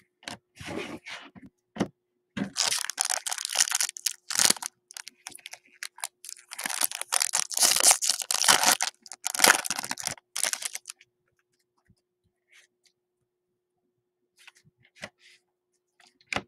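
Foil trading-card pack wrapper being torn open and crinkled by hand, in bursts lasting about eight seconds, with a few light clicks of cards being handled before it and faint ticks after.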